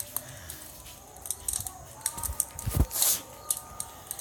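Wood bonfire crackling and popping in quick irregular clicks, with one louder thump and a short hiss about three seconds in.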